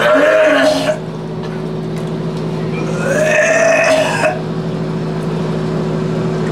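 A man retching over a toilet bowl, with two strained heaves: one ending about a second in, the other from about three to four seconds in. A steady low hum runs underneath.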